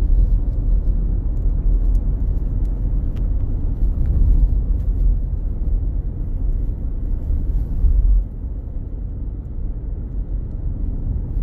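Road noise inside a moving car: a steady low rumble from engine and tyres, easing a little about eight seconds in.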